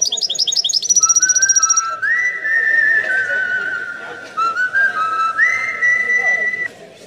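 European goldfinch twittering in a quick run of high, falling chirps, about eight a second. A series of long, steady whistled notes follows, each held a second or more, stepping between a lower and a higher pitch, sometimes two at once.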